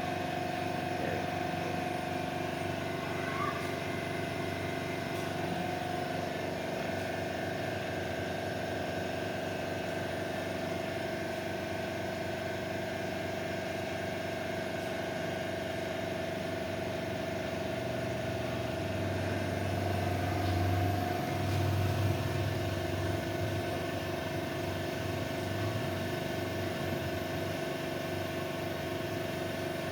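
Automatic dual-station PCB soldering machine running: a steady mechanical hum with a held whine. A low rumble swells up about two-thirds of the way through and fades again.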